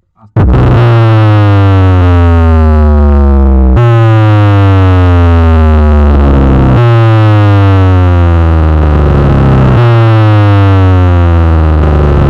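DJ-style 'pop bass' electronic music played on a small dual 8-inch speaker cabinet for a sound check: a heavy, loud bass tone under a falling synth sweep that starts over about every three seconds, after a brief silent gap at the very start.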